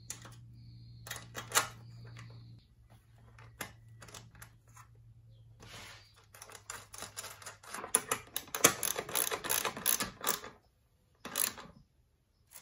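Stainless bolts and nuts clicking against an aluminium solar-panel mounting bracket as they are fitted, then a ratchet wrench clicking rapidly for about two and a half seconds as a bracket bolt is tightened, with one more short burst near the end. A low steady hum runs under the first half.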